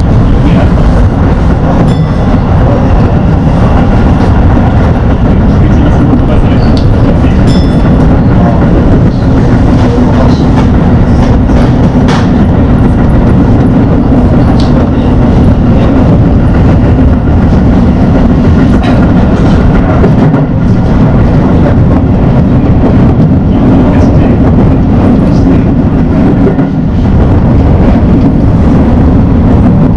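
Keio Line electric train running along the track, heard from inside the front car: a steady, loud low rumble of wheels and traction motors, with occasional faint clicks of wheels over rail joints.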